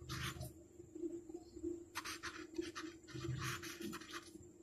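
Felt-tip marker scratching on paper, writing out a word in a run of short, faint strokes.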